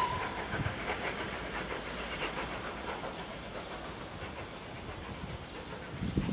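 Steam locomotive working inside a tunnel as it approaches the portal: a whistle blast cuts off at the very start, then a steady rumble of exhaust and wheels on the rails, with heavier chuffs starting near the end as it nears the tunnel mouth.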